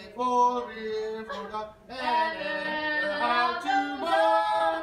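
Several people singing together without accompaniment, in long held notes.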